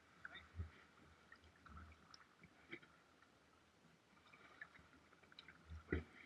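Faint small water sounds from kayak paddling: scattered splashes and drips, with a louder thump near the end.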